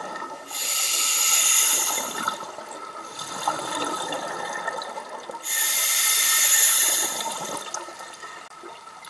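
Scuba regulator exhaust bubbles rushing past underwater in two long exhalations about five seconds apart, with quieter bubbling and breathing noise between them.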